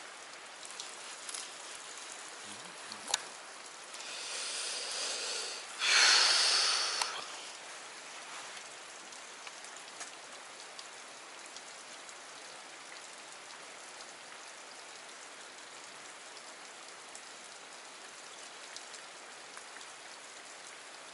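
Faint steady wash of a small creek's flowing water. A sharp click comes about three seconds in, followed by two louder rushing noises a few seconds long, the second the loudest.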